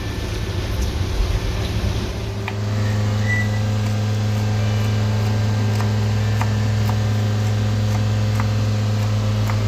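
A rumbling start, then a steady low electrical or mechanical hum from about two and a half seconds in, with faint scattered ticks over it.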